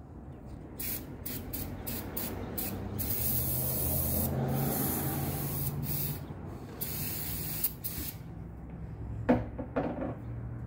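Aerosol can of brake cleaner sprayed in a string of short bursts and one longer spray of about three seconds, cleaning shipping residue off new brake rotors. Two short knocks near the end are the loudest sounds.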